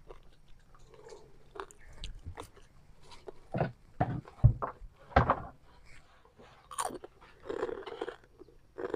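People eating a meal by hand: irregular chewing and mouth sounds with scattered clicks and light knocks from hands and plates, and one low thump about four and a half seconds in.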